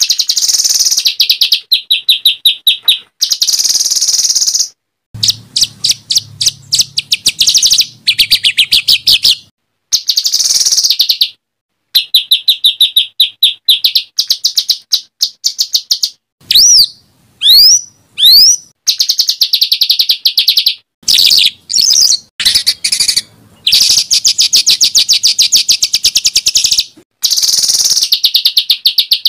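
Songbird singing rapid runs of harsh, repeated chattering notes, the fast 'shooting' phrases used as masteran for competition songbirds to copy. The runs start and stop abruptly with short silences between them, and a few clear rising and falling whistles come about two-thirds of the way through.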